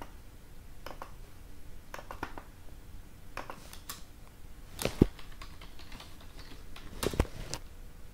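Computer keyboard keys and mouse buttons clicking in scattered single strokes, with sharper clicks about five seconds in and again just after seven.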